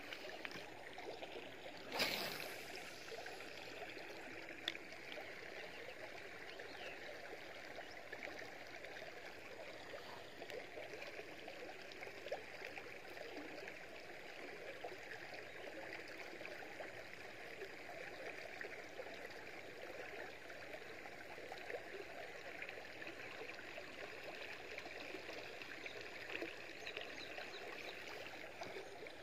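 River water running over a low rock weir, a steady rushing, with one sharp knock about two seconds in.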